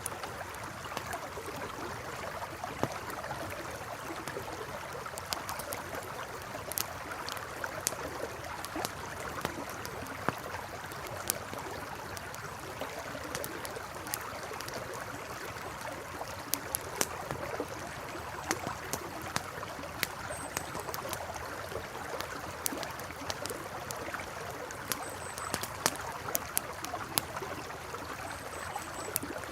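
Campfire crackling, with frequent sharp irregular pops, over the steady rush of a flowing river.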